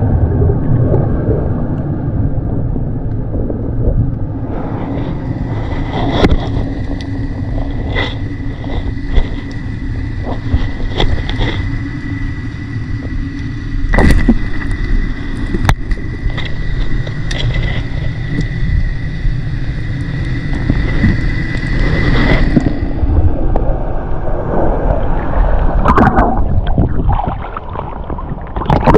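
Underwater sound picked up by a diver's action camera: a dense, muffled low rumble of water against the camera, with scattered clicks and knocks as the diver handles the rocks. A faint steady high whine runs through the middle stretch and cuts off, and near the end the camera breaks the surface, with splashing water.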